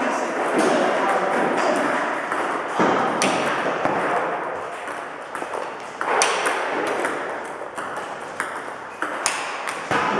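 Table tennis multiball drill: celluloid ping-pong balls clicking on the table and off the bats in a quick, steady run of ticks. The player alternates backhand chops with forehand topspin strokes.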